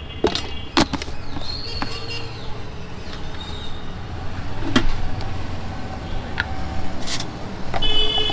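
Steady low rumble of road traffic, broken by several sharp knocks and a brief high-pitched tone near the end.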